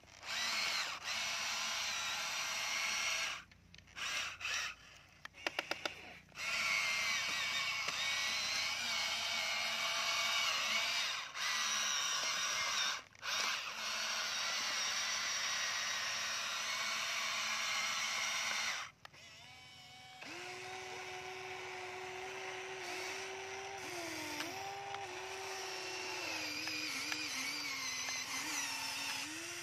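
Huina remote-control toy excavator's small electric motors whining as the boom, arm and bucket move, stopping and starting with short pauses. In the last third a lower-pitched whine steps up and down as different functions run.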